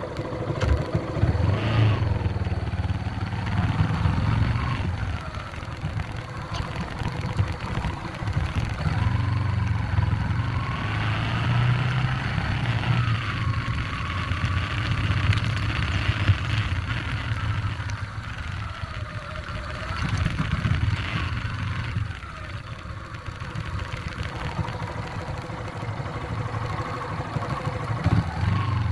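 Yamaha 150 cc single-cylinder motorcycle engine pulling away and accelerating up the road, its pitch rising and dropping several times as it goes through the gears.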